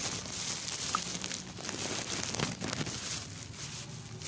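Thin plastic bag crinkling and rustling right against the microphone, in irregular scrapes and crackles.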